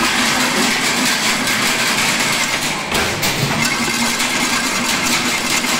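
Chain link fencing machine running, its spinning flat blade twisting steel wire into a spiral, with a steady fast metallic clatter.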